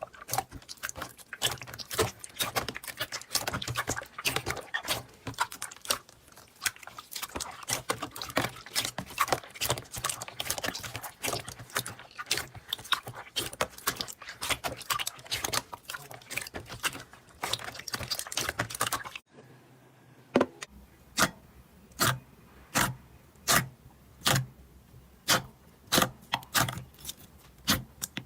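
Slime being worked by hand, making a dense run of sticky crackling clicks. After a cut about two-thirds of the way through, it gives slower, separate pops, about one and a half a second.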